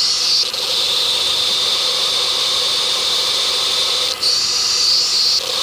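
Power steering pump of a running 2007 Honda Odyssey, amplified through a contact microphone amplifier: a loud, steady, high-pitched hissing whine. Its pitch steps down about half a second in, back up about four seconds in, and down again near the end, with a short break at each step. This is the buzzing of a power steering pump that the mechanic judges to be failing.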